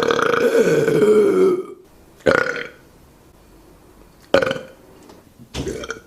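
A person belching on purpose: one long, loud burp that ends about a second and a half in, followed by three short burps.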